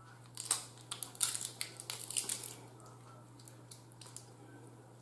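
Snow crab leg shell cracking and clicking as the meat is picked out with a fork, close to the microphone: a run of sharp clicks and snaps over the first couple of seconds.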